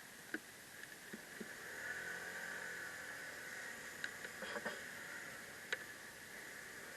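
Faint steady road and traffic hiss on a ride, with a low engine hum that swells about two seconds in and a few light clicks scattered through.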